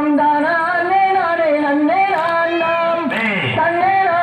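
A singer performing a Tamil kummi folk song in long held, sliding notes, with a sharp falling swoop about three seconds in.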